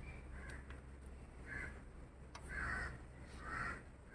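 A crow cawing repeatedly, four short calls about a second apart.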